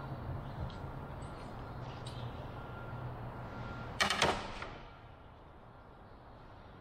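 A metal ruler is set down on a plywood board, making a short clatter about four seconds in, over a low steady hum.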